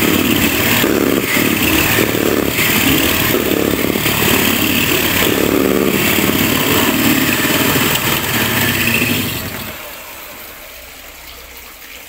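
Electric hand mixer running steadily at speed, its beaters whipping eggs and sugar in a stainless steel bowl to the thick, pale ribbon stage, then switched off near the end.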